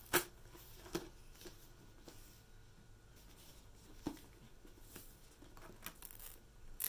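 Handling noises of jacketed hardcover books: a few short taps and light rustles of paper as the books are turned and their dust-jacket flaps opened, the sharpest tap right at the start.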